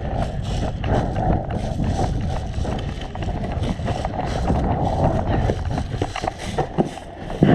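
Wind and rubbing noise on a body-worn camera's microphone, with irregular footsteps and knocks from a player moving.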